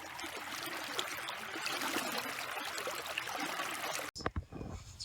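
A river flowing, a steady even rushing noise that cuts off suddenly about four seconds in, after which voices begin.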